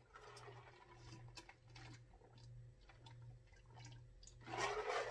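A person drinking in steady gulps from a large jug: faint swallows about every two-thirds of a second, with a louder sound near the end as the drinking stops.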